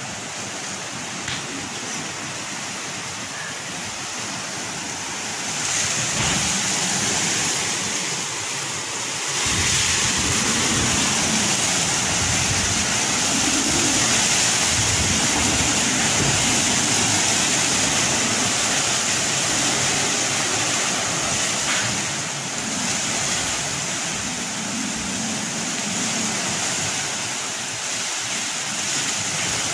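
Cyclone storm wind with rain, a steady loud rushing that swells in gusts, louder from about ten seconds in, with low rumbling buffets.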